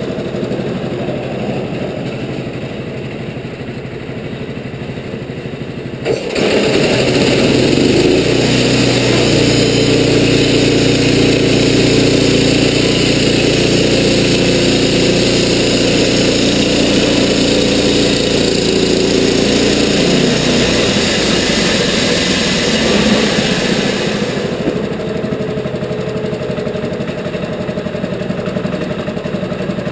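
Wood-Mizer portable band sawmill's gas engine idling, then throttled up suddenly about six seconds in as the bandsaw blade runs through a western red cedar log for about eighteen seconds. The engine drops back to idle near the end.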